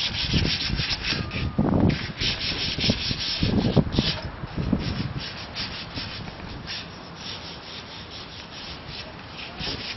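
Hand sanding of a rusty metal radio-tower member: quick, repeated scratchy back-and-forth strokes, a few a second, with dull thumps in the first half.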